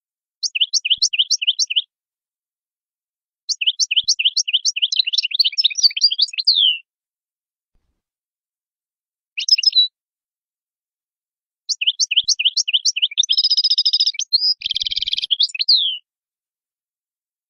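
European goldfinch singing in four phrases of quick, repeated falling chirps, with short silent pauses between them; the third phrase is very short, and the last and longest includes a buzzy trill.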